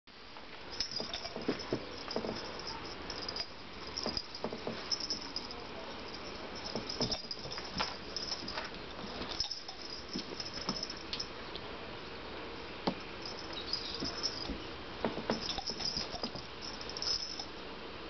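Two cats wrestling on a tile floor: scattered knocks and scuffles of paws and bodies, with high, short chirps now and then.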